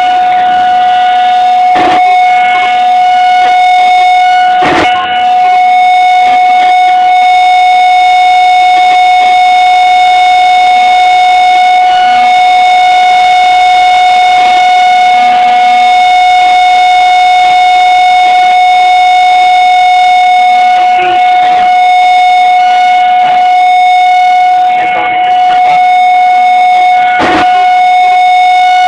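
Outdoor tornado warning siren, running on its battery backup, sounding a loud, steady single-pitch wail. A few brief knocks sound over it.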